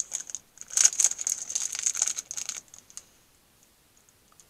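Plastic chocolate-bar wrapper crinkling in quick bursts as it is opened and peeled back, stopping about three seconds in.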